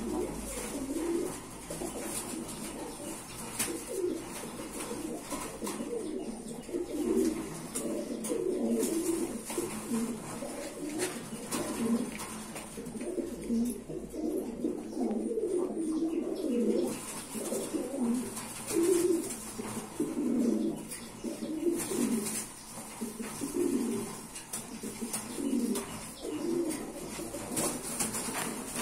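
Domestic pigeons cooing over and over in low, repeated calls.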